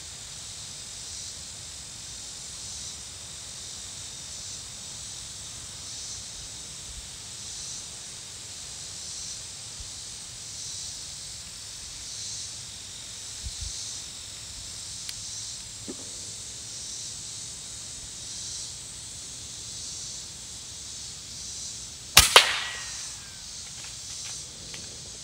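A single shot from an FX Impact M2 .22 PCP air rifle about twenty-two seconds in: a sharp crack with a quick second knock right after it. Under it, a steady insect chorus pulses about once a second.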